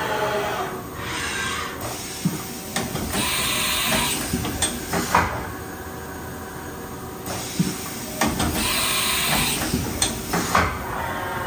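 Haas VF-3B vertical machining center cycling through tool changes: bursts of air hiss lasting a second or two, each followed by sharp metallic clunks and clicks of the tool being released and clamped, over a steady machine hum. A faint rising whine comes in near the end.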